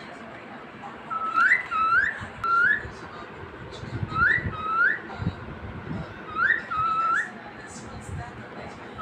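A bird whistling short phrases of two or three rising notes, each phrase repeated every two to three seconds.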